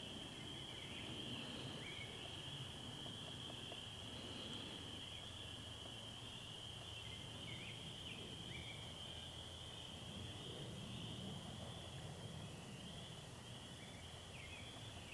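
Outdoor ambience: a steady high-pitched chorus of calling animals, with a few short, faint bird chirps.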